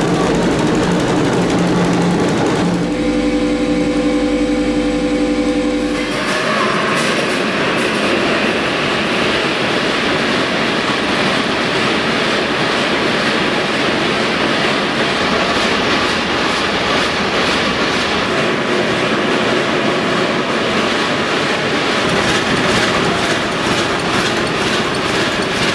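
Big old engines running loud and steady. The sound changes abruptly twice, around three seconds in and again around six seconds in. From then on a large engine runs with a dense, even mechanical clatter.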